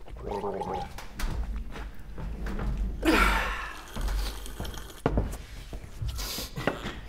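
Office noises played as a percussion piece: scattered clicks and knocks from desks and office objects. A short pitched, voice-like sound about three seconds in falls in pitch.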